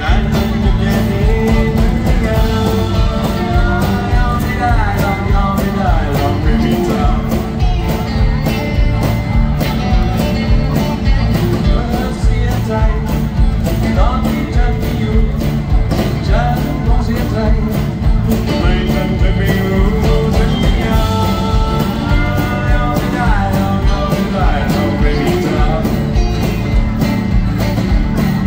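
Live band playing a song: drums keeping a steady beat under bass, acoustic guitar and keyboards, with a man's singing voice over it.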